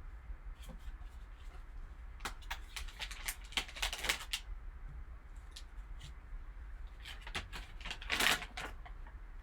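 Plastic card packaging being handled as a sports-card pack is opened: quick crinkles, rustles and clicks in two bursts, the second, about seven seconds in, the louder.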